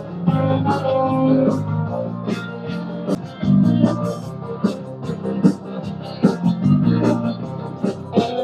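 Instrumental music with guitar, bass and drums, played through a KemiMoto Midnight 40 Bluetooth soundbar.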